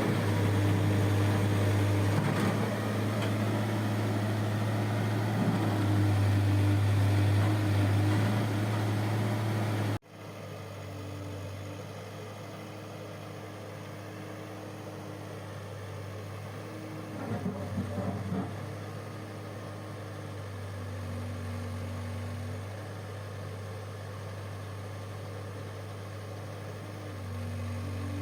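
Diesel engine of a backhoe loader running steadily at an even pitch. About a third of the way through the sound cuts abruptly and resumes quieter, and a short burst of clatter comes a few seconds later.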